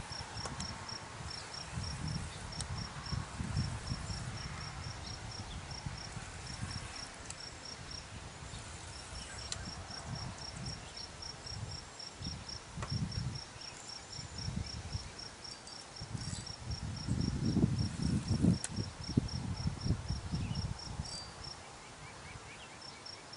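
An insect, cricket-like, chirps steadily at about four high chirps a second, pausing briefly twice. Under it, wind buffets the microphone in low rumbling gusts, strongest about two-thirds of the way through.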